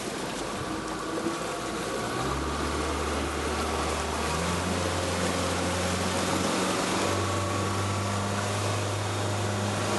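Tour boat's engine running under a steady rush of water; about two seconds in a low steady engine drone comes up, rising a little in pitch about seven seconds in as the throttle opens.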